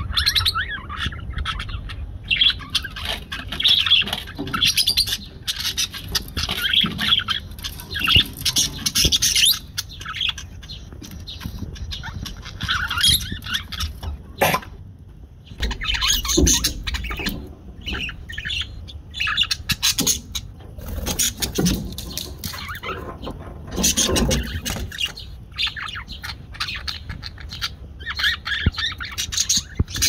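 Several budgerigars chattering and chirping in a rapid, continuous twitter, with a brief lull about halfway through.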